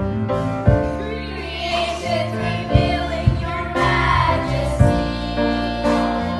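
Children's choir singing together into a microphone over an instrumental accompaniment with a steady bass and a regular beat.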